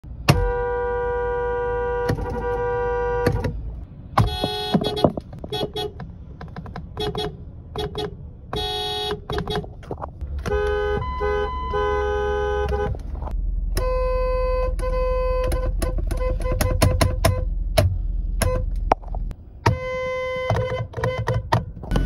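Car horns of several different cars sounding, heard from inside the cabin: held blasts of a second or more and strings of short quick taps, each horn a steady two-note chord. A low engine idle hums underneath.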